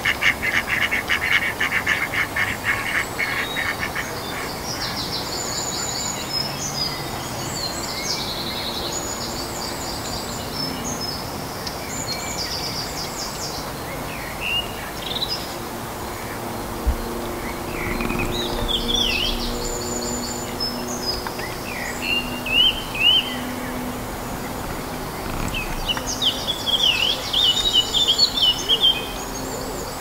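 Songbirds singing in short, quick, high phrases that come and go, over a steady outdoor hiss. In the first few seconds a fast rattling call runs, then stops.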